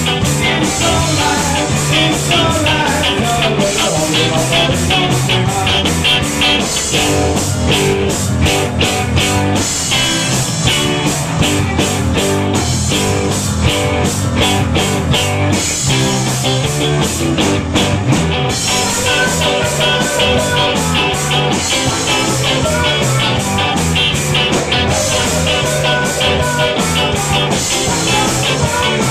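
Rock band playing live: distorted electric guitar, electric bass and a Ludwig drum kit with a steady cymbal beat. A singer comes in on a handheld microphone in the second half.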